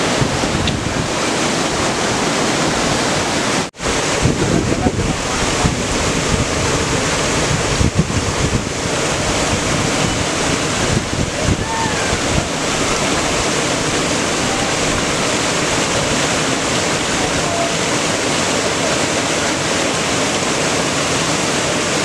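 Steady rushing of a waterfall, with wind buffeting the microphone; the sound breaks off for an instant about four seconds in.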